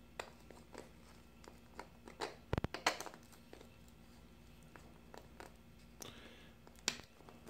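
Small clicks, taps and scraping from handling a 3D-printed plastic fuze body and its lid while trying to fit the lid on, with a louder double knock about two and a half seconds in and a short scratchy rub near the end.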